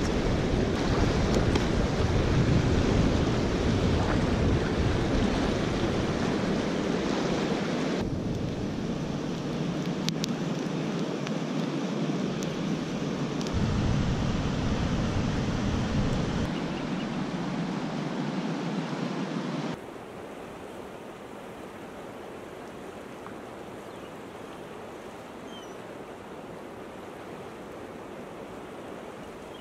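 Steady rushing of river rapids, loud at first, then dropping to a quieter flow about two-thirds of the way through. A few faint crackles from a campfire come about ten seconds in.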